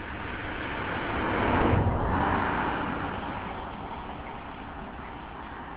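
A car passing by: road and engine noise swells to a peak about two seconds in, then fades away over the next few seconds.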